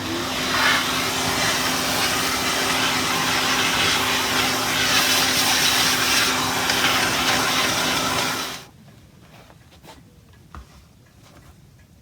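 An electric motor runs with a steady hum under a loud hiss, then cuts off suddenly about two thirds of the way in, leaving a quiet room with a few faint taps.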